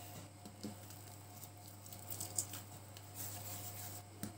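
Faint soft patting and squishing of hands rounding pieces of yeast dough into balls on an oiled tabletop, with a few light taps.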